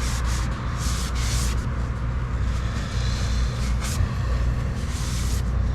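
Steady low background hum in a workshop, with a few faint clicks of transmission parts being handled.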